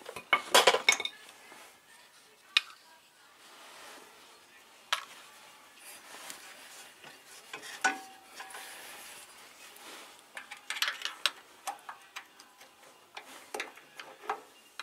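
Metal tools and engine parts clinking and scraping by hand, in short irregular clusters of clicks with pauses between; the engine is not running. The loudest cluster comes right at the start, with more around the middle and near the end.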